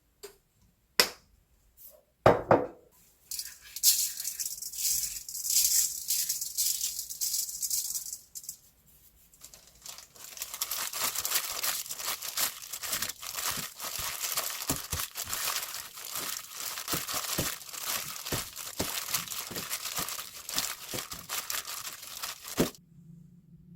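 A few sharp knocks, then a long spell of crinkling and rustling handling noise thick with small clicks, which stops abruptly near the end.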